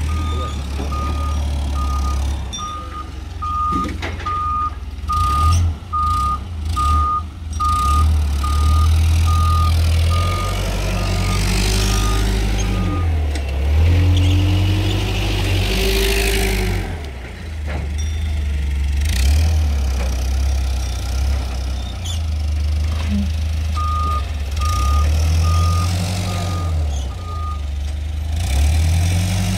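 LPG forklift engine running and revving up now and then, with its reversing alarm beeping a little under twice a second for the first dozen seconds and again near the end.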